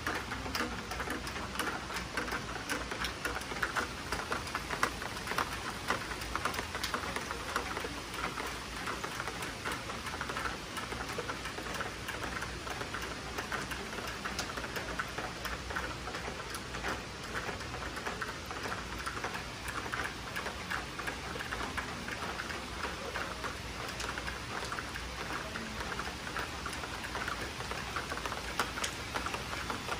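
Steady summer rain: an even patter with many close, sharp ticks of individual drops striking nearby surfaces.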